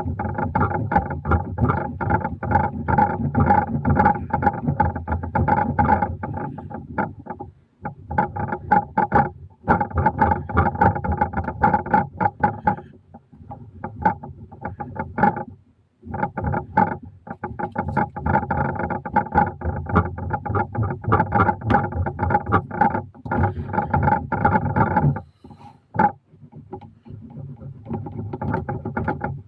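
Soaked veg-tan leather being rubbed and pressed by hand around a gun form while it is wet formed, squeaking and creaking, in bouts of a few seconds with short pauses.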